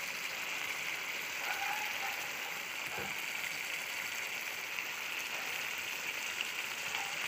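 Fish curry in mustard masala sizzling and bubbling steadily in a kadai as it cooks down, with a soft knock about three seconds in.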